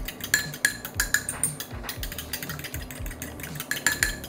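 Metal fork beating raw eggs in a ceramic bowl: quick, rhythmic clinks of the tines against the bowl, about three a second.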